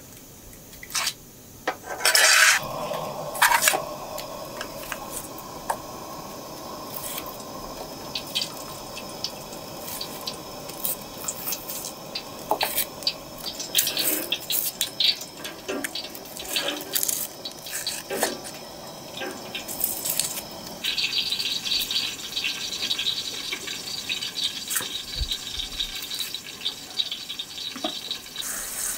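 Cooking sounds: a metal tray clanks down onto a portable gas burner about two seconds in, followed by many small knife clicks and scrapes as onions are peeled over a metal platter. About two-thirds of the way through, a steady sizzling hiss starts as the tray heats on the burner.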